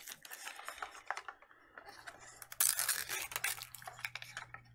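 Packaging crinkling and crackling as a Mini Brands capsule and its wrapped mini item are handled and opened, in a quick run of small crackles with a louder burst about two and a half seconds in.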